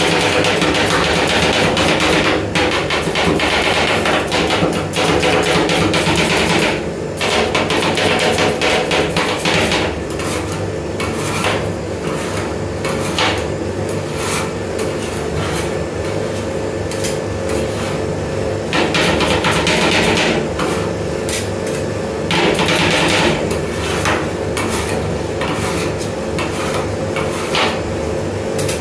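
Metal spatulas chopping diced green apple on the steel cold plate of a rolled ice cream machine: rapid, continuous clacking of the blades striking the steel.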